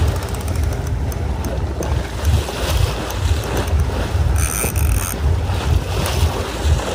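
Wind buffeting the microphone over the sea and boat noise, a steady rush with a gusting low rumble. About four and a half seconds in, a brief high-pitched squeal sounds twice in quick succession.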